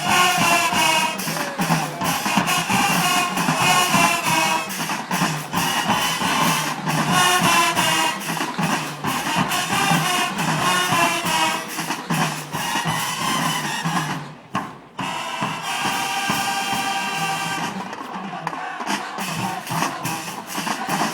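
High school marching band playing, with brass over drums. The music cuts out for a moment about two-thirds through, then the band holds a long chord.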